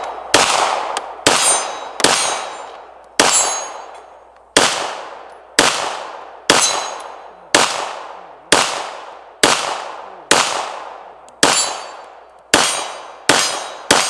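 9mm Glock 17-pattern pistol, a Polymer80 frame with a Rock Island Armory slide, firing ball ammunition. About fifteen shots come at roughly one a second, each trailing off in a long echo.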